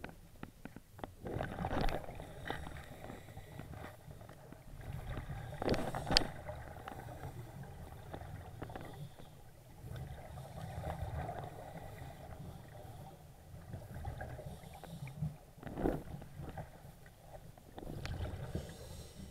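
Scuba diver breathing underwater: regulator inhalations and exhaled bubbles, muffled through the camera's waterproof housing, swelling about every four to five seconds over a low rumble.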